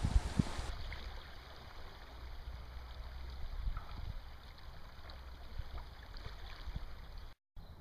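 River current rushing steadily over stones, with a low rumble underneath. The sound cuts out briefly near the end.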